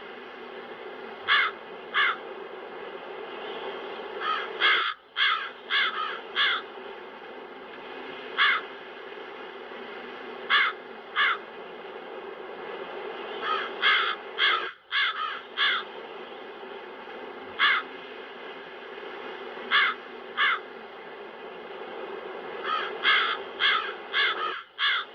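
Crows cawing, with short harsh caws singly or in quick runs of two to four, over a steady wind sound effect. The wind drops out briefly three times, about ten seconds apart.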